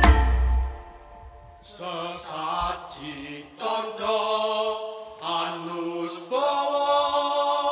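The ensemble with its bass guitar stops within the first second. A solo voice then chants Javanese lyrics unaccompanied in several slow phrases with vibrato, ending on a long held note.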